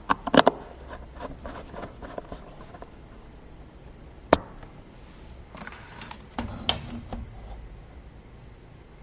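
Computer parts being handled during a PC build: a cluster of sharp clicks and taps near the start, one loud click about four seconds in, then more clicking and scraping of hard plastic and metal parts.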